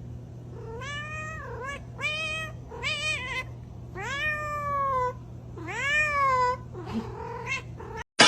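Domestic cat meowing repeatedly, about six calls that each rise and then fall in pitch, two of them in the middle long and drawn out, the last ones fainter.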